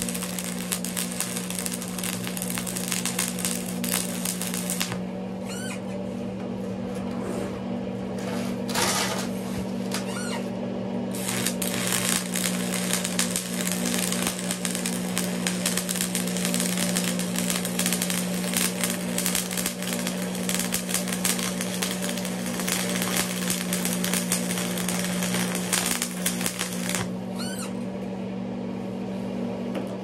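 Wire-feed (MIG) welding arc crackling and sizzling steadily as a bead is laid on steel, over a steady low hum. The crackle thins out for several seconds about five seconds in, then picks up again.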